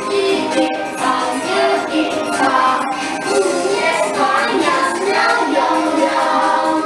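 A Dragon Boat Festival children's song playing, with voices singing a melody over backing music.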